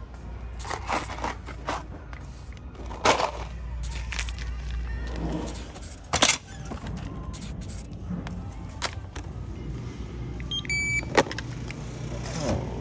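Packaged hardware and a plastic shopping basket being handled, with irregular knocks and clatters, over a steady low store hum; a short electronic self-checkout scanner beep sounds near the end.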